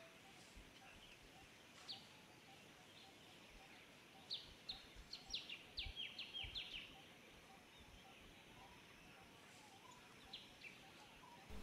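Quiet forest ambience with a small bird's short, descending chirps: one early, a quick run of about ten in the middle, and a couple more near the end.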